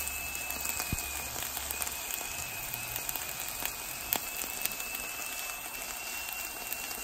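Ground turkey, onions and bell peppers sizzling in a frying pan: a steady crackling hiss, with a few faint clicks.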